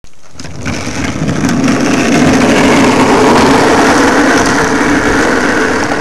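Small engine of a homemade vehicle running loud and steady, building up over the first two seconds and then holding.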